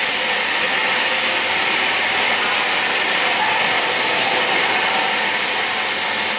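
Drop FTTH optical fibre cable extrusion line running: a steady, even machine hiss and whir with no breaks or knocks.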